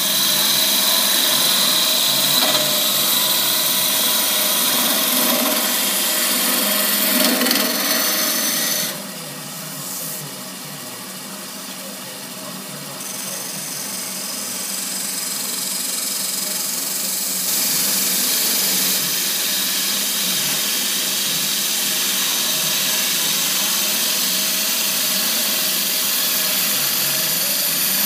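Wood lathe running while a hand-held turning tool cuts the inside of a thin-walled wooden goblet, a steady scraping noise. The cutting sound drops away about nine seconds in, then builds back gradually and is full again before the midpoint.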